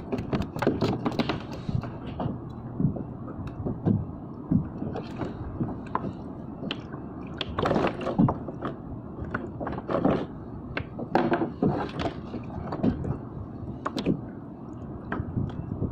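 Irregular clicks, knocks and rattles of fishing tackle being handled in a plastic kayak, some knocks louder than others.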